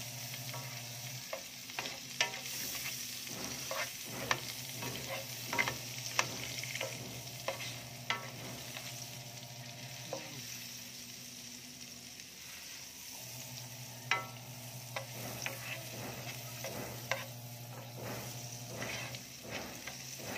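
Food sizzling in hot fat in a frying pan while a plastic spatula stirs and scrapes it, with many sharp clicks and pops scattered through the sizzle, fewer for a few seconds around the middle.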